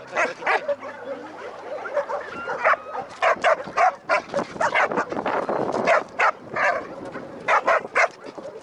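Dogs barking: many short, sharp barks in quick, irregular runs.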